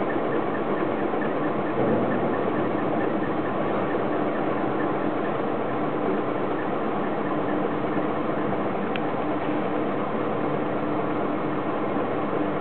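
Hydraulic cylinder fatigue-test rig running: a steady mechanical hum with a constant low tone, and a single faint click about nine seconds in.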